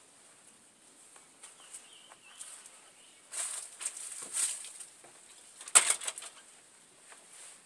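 Handling noise from a camp stove and mess kit being fiddled with during an attempt to light the stove: scattered rustles and clicks, a louder scraping cluster about halfway through, and one sharp click or knock a little later.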